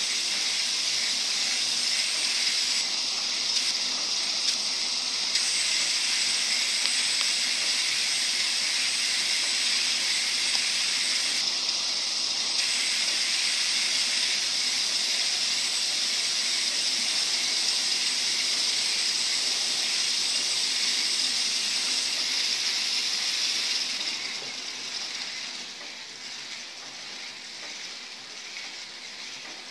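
Several small K'NEX electric motors spinning plastic gears, differentials and wheels together, a steady high whir. Near the end it drops sharply quieter as some of the motors stop.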